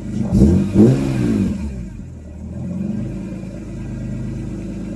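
BMW S54 straight-six engine blipped twice in quick succession, the revs rising and falling back to a steady idle within about two seconds. It runs quiet, with no lifter tick after an out-of-spec valve clearance was corrected.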